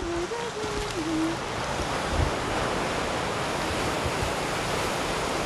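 Sea surf washing onto a beach in a steady rush, with some wind buffeting the microphone.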